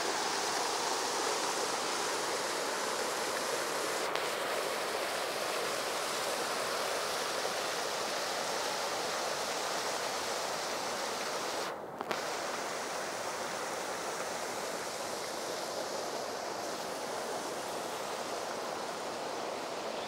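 River water rushing over rock ledges in shallow, foaming rapids: a steady hiss of churning water. It dips briefly with a small knock about twelve seconds in.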